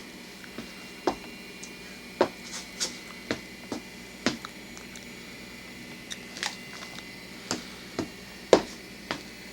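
Pretzel being crunched and chewed: about a dozen short, irregular crunches spread over several seconds, the sharpest one near the end.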